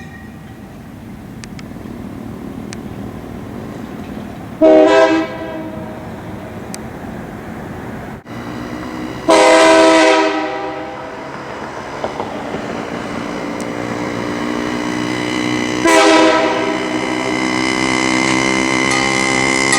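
Nathan K3HA air-powered train horn sounding three blasts about five and six seconds apart, the middle one the longest, each a loud multi-note chord. Between and after the blasts a quieter held chord grows steadily louder.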